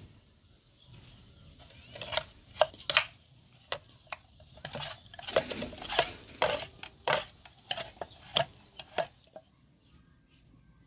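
Wooden spatula scraping and knocking against a metal frying pan and serving tray while stuffing is spooned into a raw whole chicken. The irregular string of sharp clacks and short scrapes starts about two seconds in and stops shortly before the end.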